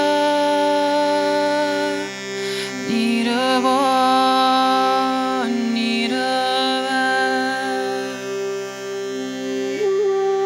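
Indian devotional-style music: a hand-pumped reed box of the harmonium type holds a steady drone chord while a melody line above it wavers and moves between held notes.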